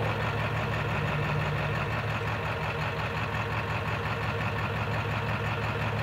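Warm Ford 7.3 PowerStroke turbo-diesel V8 idling steadily.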